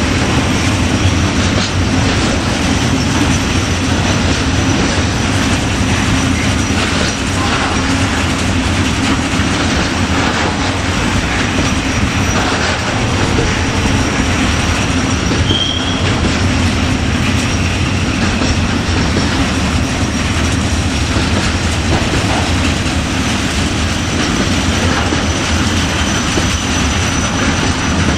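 Freight train wagons rolling steadily past, wheels knocking over rail joints, with a brief high wheel squeal about halfway through.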